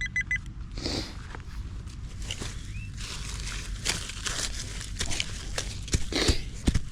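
Footsteps and rustling through dry grass, with irregular small clicks and a few sharper knocks near the end.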